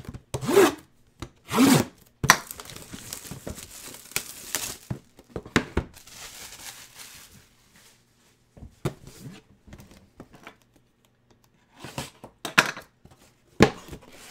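Cardboard boxes being handled by hand: long scrapes of cardboard rubbing and sliding on cardboard, with scattered knocks and taps as the boxes are set down and shifted.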